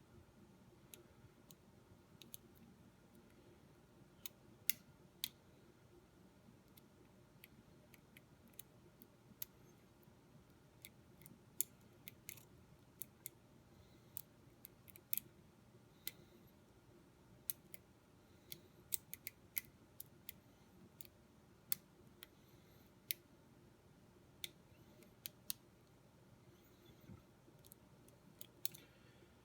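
ERA lock being picked: irregular small sharp clicks of the pick and tension wrench working the pin stack, over faint room hiss.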